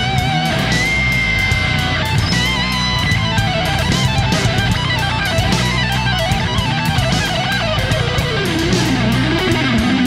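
Background rock music led by electric guitar, with bending, wavering lead notes over a steady beat.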